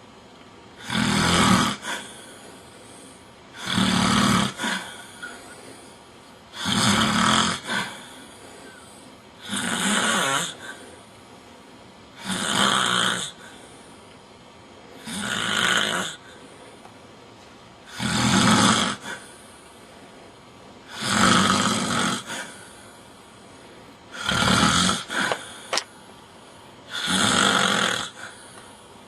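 A man snoring loudly in a steady rhythm: about ten snores, each lasting about a second, roughly one every three seconds, with quiet breathing between.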